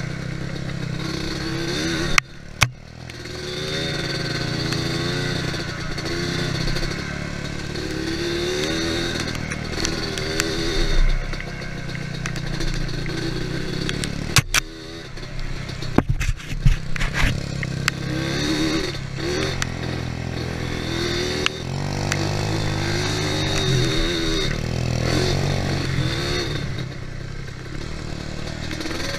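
ATV engine running and revving up and down as it rides, with sharp knocks and rattling clatter: a pair a couple of seconds in and a cluster about halfway through.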